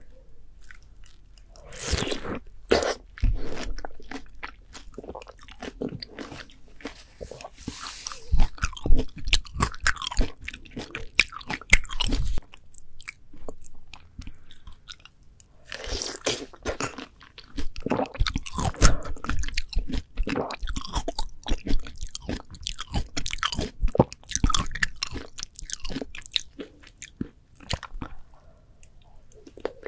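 Close-miked biting and chewing of ripe, juicy melon, with wet crunches and slurping crackles in two long spells and a short lull between them.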